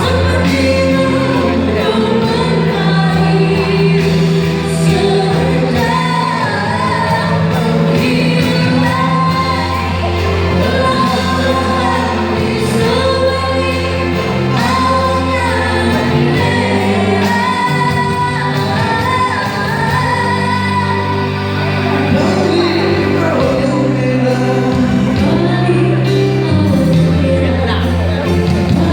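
A woman singing a Malay pop ballad with a strong voice over a musical backing track.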